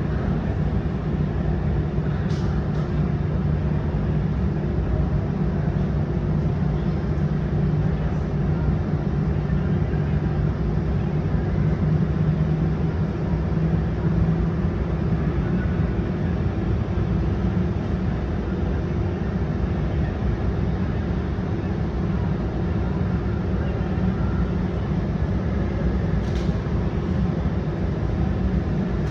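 Aircraft on the ground at night: a steady engine rumble with a low hum that fades out about halfway through, and two faint clicks, one near the start and one near the end.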